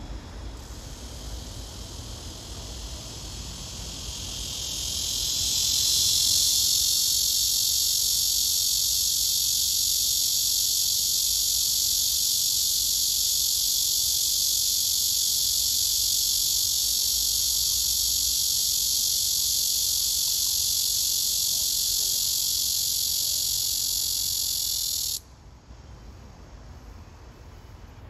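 Male cicada singing: a loud, high-pitched buzz that swells over the first few seconds, holds steady, then stops abruptly near the end.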